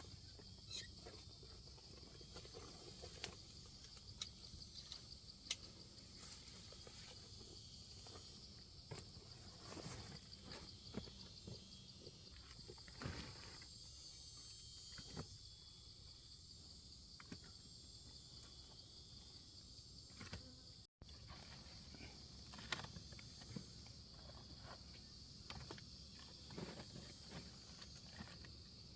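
Insects chirring steadily at a high pitch, with scattered faint clicks and rustles; the sound cuts out for a split second about two-thirds of the way through.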